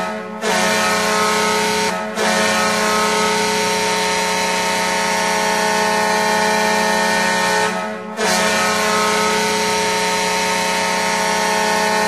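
The Gatineau Olympiques' hockey goal horn sounding a steady chord of several tones in long blasts. It breaks off briefly about two seconds in and again about eight seconds in.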